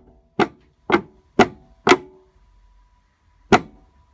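Sharp metallic knocks with a short ring from a BMW E46 M3's rear subframe and its cracked body mount as the subframe is jerked side to side. There are four knocks about half a second apart, then one more after a pause of over a second.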